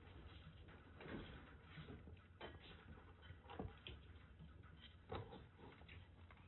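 Kittens play-fighting: faint scuffling, with a handful of soft taps and knocks from their paws and bodies on the floor mat, over a low steady hum.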